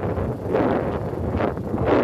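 Wind buffeting the microphone: a low rushing noise that swells and eases in uneven gusts.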